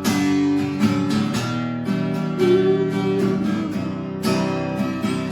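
Acoustic guitar strumming chords in a steady rhythm, the instrumental accompaniment between the sung refrains of a singer-songwriter song.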